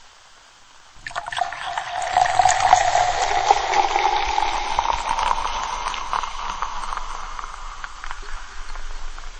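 Carbonated liquid fizzing in a glass: a dense crackle of bursting bubbles that starts about a second in and slowly dies away as the foam settles.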